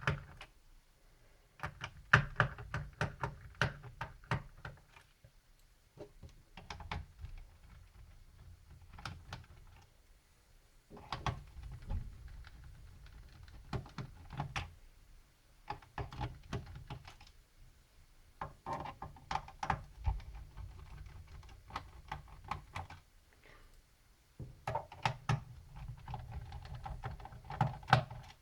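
Screwdriver backing out the small perimeter screws of a laptop's plastic bottom case, with handling of the case. It comes as repeated small clicks and taps in bursts of a few seconds, with short pauses between screws.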